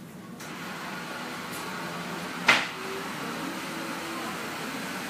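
A steady machine-like rushing hiss starts about half a second in and runs on, with one sharp click about halfway through.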